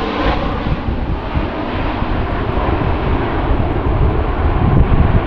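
Airbus A350 XWB's twin Rolls-Royce Trent XWB turbofans heard from the ground as the airliner banks overhead in a low flypast: a loud, steady jet noise whose high hiss fades a little while the low rumble grows stronger near the end.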